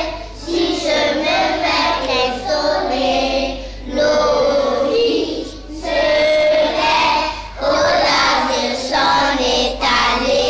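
A group of young children singing a French song together, in phrases of about two seconds with short breaks between.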